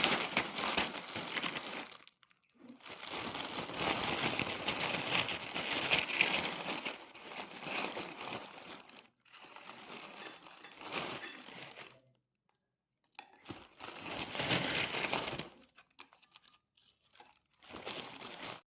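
Plastic bag of kerupuk (crackers) crinkling as it is handled, in several bouts with short pauses between them.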